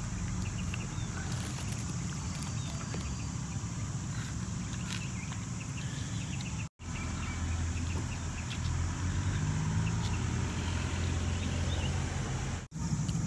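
Steady low outdoor rumble with faint scattered chirps and ticks above it. The sound cuts out abruptly twice, about halfway through and just before the end.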